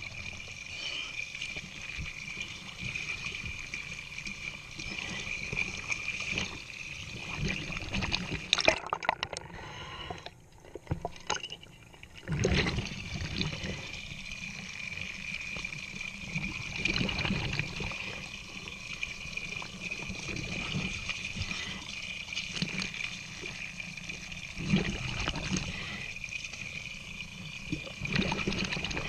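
A stream of water pouring from a boat's through-hull outlet and splashing onto the water surface, close to the microphone, with a steady high whine throughout. The splashing drops away briefly about ten seconds in, and there are a few louder splashes later on.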